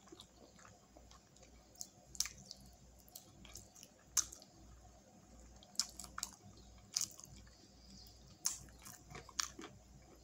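Close-miked chewing of sauce-covered chicken wings: mouth smacks and sharp clicks coming at irregular intervals.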